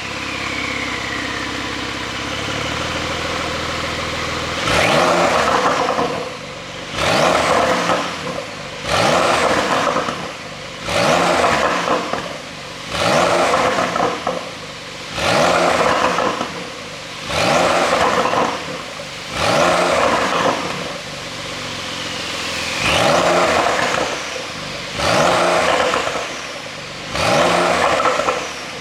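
Porsche 911 Carrera 4S twin-turbo flat-six exhaust, settling to a steady idle, then revved in short blips about every two seconds, each rising and falling in pitch.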